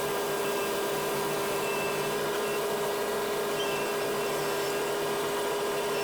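Steady machine whir and hiss with a few constant tones, typical of the John Deere 4400 combine running at steady speed during corn harvest.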